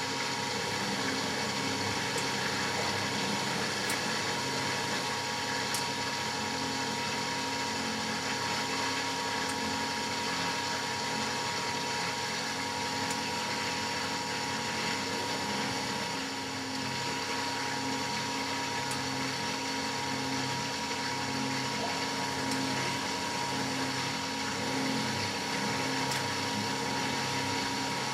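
Matura Autostatic 850 washing machine running mid-programme: a steady mechanical hum with a constant high tone and a faint low pulsing.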